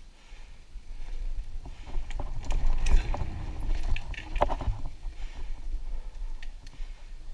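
Mountain bike riding over dirt singletrack, heard from an on-bike action camera. Wind buffets the microphone and tyres run over the ground, with scattered rattles and clicks from the bike over bumps. It gets louder about two seconds in and is loudest around three seconds in.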